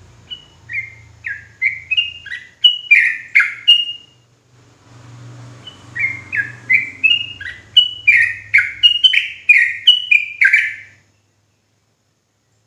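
Yellow-vented bulbul (trucukan) singing its rapid 'ropel' song: two runs of quick down-slurred notes, each run building in loudness. The second run starts about six seconds in and cuts off abruptly near the end.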